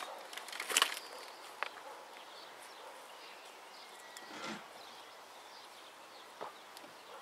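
Soft rustles, scrapes and small taps of hands working crumbly soil and handling lettuce seedlings, with a cluster of sharper clicks about a second in and a soft thud near the middle.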